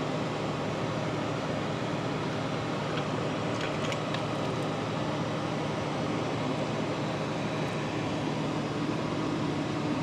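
Steady maintenance-hangar background noise: an even rush with a low hum underneath, and a few faint clicks about three and a half to four seconds in.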